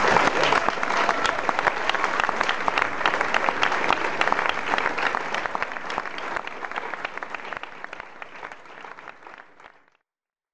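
Audience applauding, the clapping fading gradually away and ending about ten seconds in.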